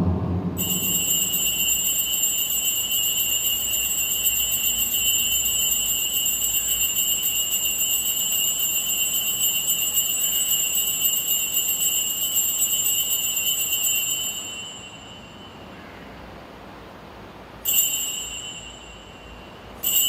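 Altar consecration bell ringing steadily and continuously for about fourteen seconds as the host is elevated at Mass, then rung twice more briefly near the end, each short ring fading away.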